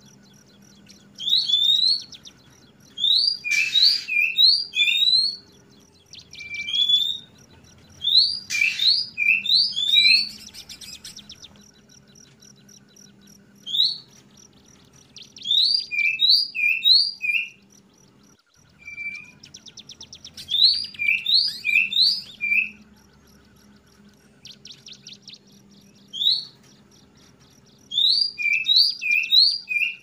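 Oriental magpie-robin (kacer) singing: phrases of short rising whistles, each run followed by a few lower notes, repeated every second or two with brief buzzy rattles in between.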